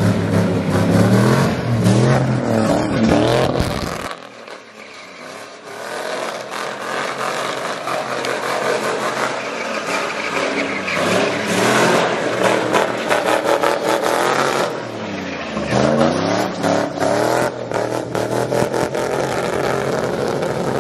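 Full-size pickup truck engines revving up and down hard while the trucks spin donuts, with tyre noise under them. The sound drops abruptly about four seconds in, then the revving picks up again.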